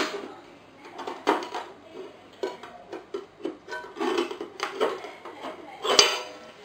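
Hands handling an open aluminium DAC case: a series of light metallic clinks and knocks, the sharpest at the very start and again about six seconds in.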